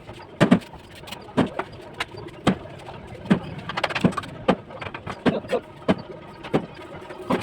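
Bricklaying: a mason's trowel knocking and tapping on bricks and mortar in an irregular run of sharp strikes, roughly one or two a second.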